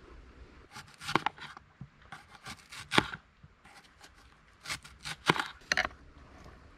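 Kitchen knife slicing an onion on a plastic cutting board: crisp cuts and knocks of the blade against the board, in three short bunches, the loudest knock near the middle.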